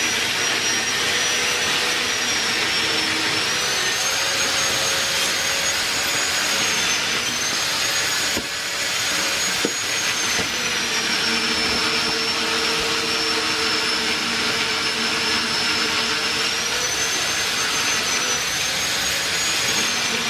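Hydraulic well-drilling rig running steadily, its machinery giving a constant rushing noise with a high whine that drifts slightly up and down in pitch. A brief dip and a single click come a little before the middle.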